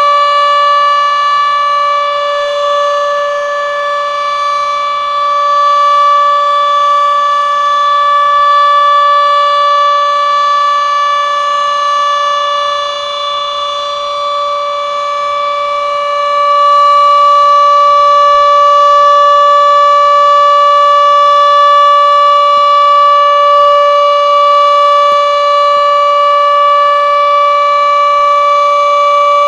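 Denver outdoor warning siren sounding a steady tone during a test, holding one pitch with no wail. Its loudness swells and fades slowly, and it gets louder about halfway through.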